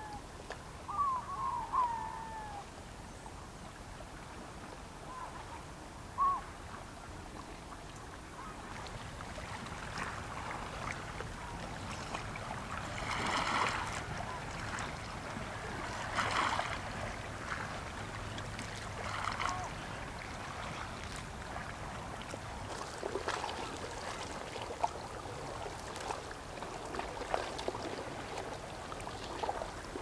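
Small waves lapping and splashing among shore ice and rocks, in soft swells that rise and fade. A bird calls a few times near the start.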